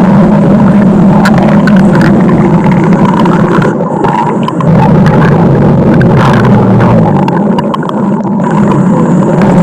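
Loud, continuous stomach growling: a low, gurgling rumble that eases off briefly twice.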